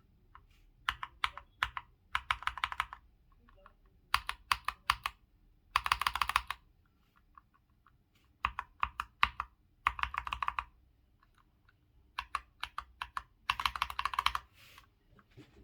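Keystrokes on a Hator Skyfall TKL Pro mechanical keyboard with PBT keycaps and mixed hot-swapped switches: a few separate presses, then a fast flurry of keystrokes, repeating several times.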